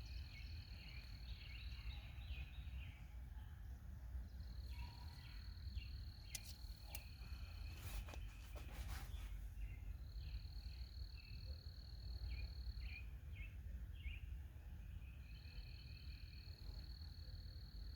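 Outdoor ambience: an insect trilling at one steady high pitch in bouts of about three seconds, with short chirps between them over a low rumble. A few sharp clicks come near the middle.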